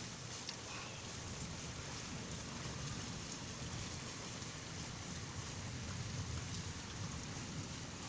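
Heavy thunderstorm rain falling steadily, an even hiss with no thunderclap.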